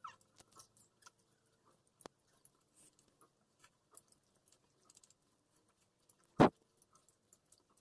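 Someone chewing pineapple: scattered soft, wet clicks of eating, with one loud knock about six and a half seconds in.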